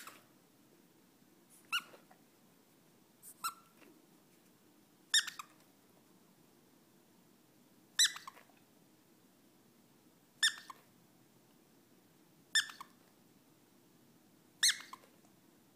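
A squeaky toy squeezed in short single squeaks, seven of them, high-pitched and about two seconds apart.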